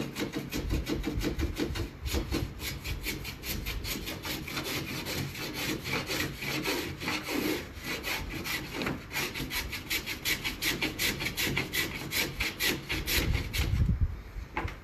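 A hand tool shaving along the edge of a plywood panel in quick, even repeated strokes, stopping near the end.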